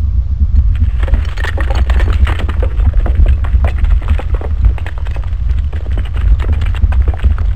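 Logo-intro sound effect: a deep, steady rumble with dense crackling and clicking layered on from about a second in.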